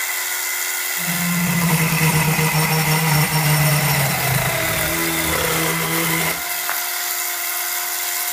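Homemade 12-volt chainsaw, driven by a Bear Claw electric winch motor, running with a steady whine. About a second in it cuts into a branch and its pitch drops under the load; it rises again near the end as the saw runs free.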